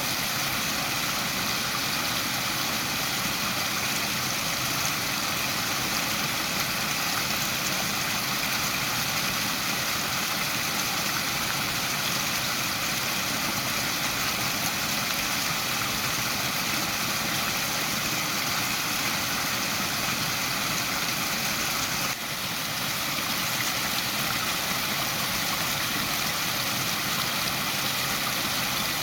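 Waterfall: a steady, dense rush of falling water, with a momentary dip in level about two-thirds of the way through.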